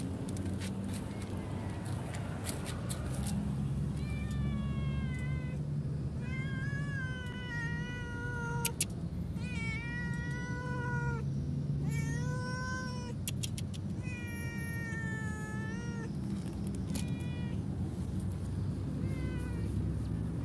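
Tabby kitten meowing over and over, about a dozen calls of up to a second each, starting about four seconds in. A steady low hum runs underneath.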